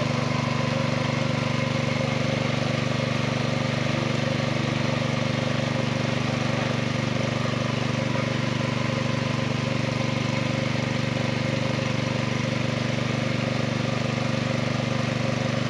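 A small engine running steadily at an even speed: a continuous low drone that does not change.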